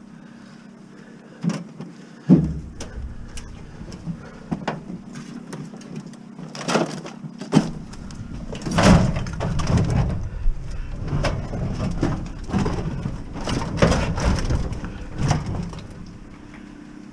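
A large sheet-metal appliance cabinet is heaved and slid into a hatchback's cargo area: scattered knocks, a heavy thump about two seconds in, then several seconds of clunking and scraping as it is pushed in over the bumper and floor.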